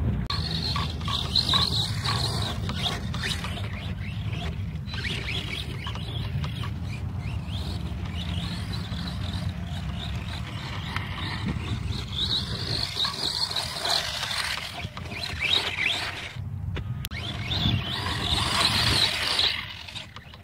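Wind rumbling on the microphone, with bursts of hissing and scraping about a second in, around twelve seconds in and again near the end.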